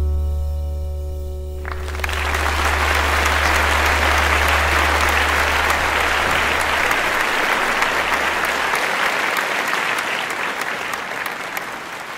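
The closing chord of a jazz piano trio rings out and dies away in the first two seconds. Then an audience applauds steadily, the clapping thinning slightly near the end.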